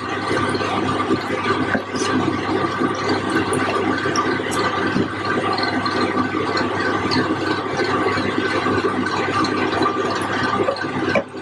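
Chicken curry pieces simmering and sizzling in the juices they have released in the pan, a steady watery bubbling, with a few light knocks of the stirring spoon.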